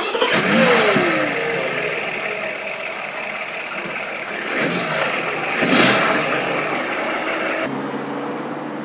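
BMW M5's twin-turbo V8 running and revving; its pitch falls about a second in, and it swells twice a little past the middle. Shortly before the end it drops to a quieter, steadier hum.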